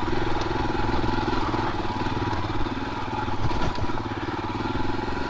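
Royal Enfield Himalayan 450's single-cylinder engine running steadily under way.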